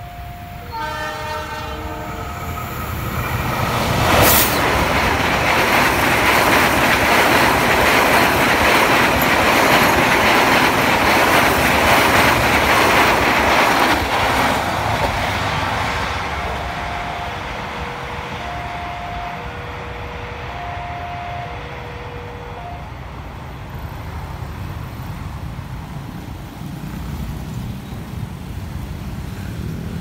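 A diesel-hauled passenger train sounds its horn as it approaches, then passes close by, loud, with the clickety-clack of wheels over the rail joints. Later a level-crossing warning sounds two tones alternating high and low for several seconds, then stops.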